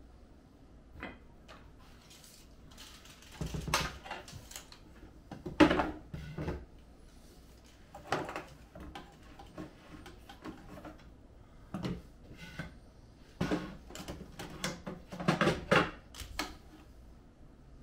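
Irregular handling noise: clicks, knocks and short rattles of a metal tool and small parts being set down and positioned against a wooden cabinet, with a sharper knock about five and a half seconds in.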